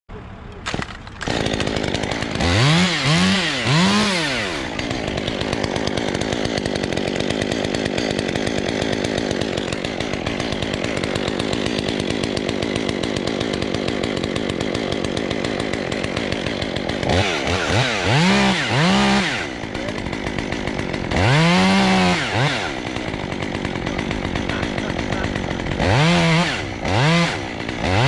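A compact climbing chainsaw high in a tree, revving up and down in short bursts several times. Between the bursts it runs steadily for about ten seconds, as when cutting under load into limbs.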